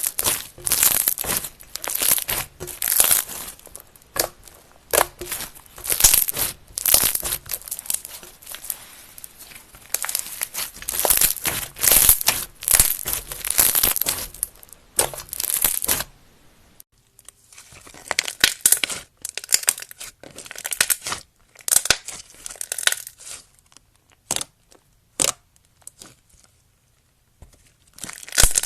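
Slime being worked and pressed, giving runs of sticky crackling and popping. Just past the middle the crackles stop briefly and then come back sparser and softer, in short clusters with pauses between them.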